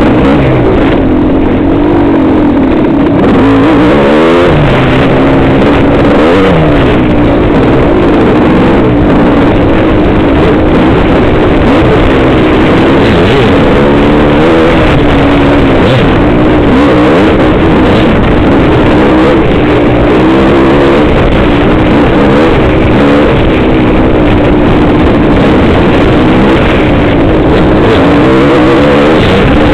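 Dirt bike engine riding a forest singletrack, its pitch rising and falling over and over as the throttle is opened and closed. Loud and close throughout.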